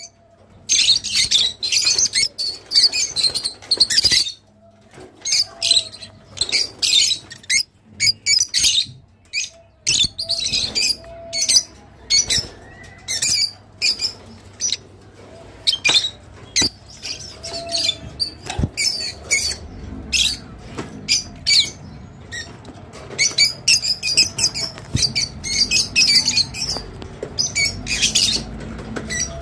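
Rosy-faced lovebirds chattering: rapid, shrill chirps and squawks in quick runs, with a few brief pauses.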